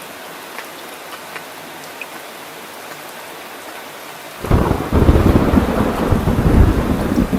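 Steady rain with scattered drop ticks; about four and a half seconds in, a loud low rumble of thunder breaks in and carries on.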